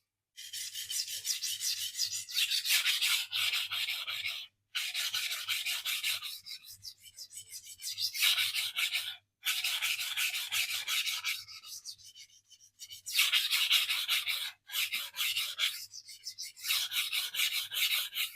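Steel knife blade being stroked back and forth on a sharpening stone: a rapid scraping rasp in runs of a few seconds, broken by short pauses.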